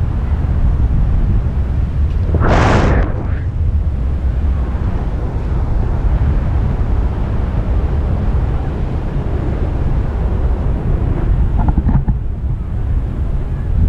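Wind buffeting the microphone of a camera on a selfie stick during a tandem paraglider flight: a steady low rumble, with one brief louder rushing burst about two and a half seconds in.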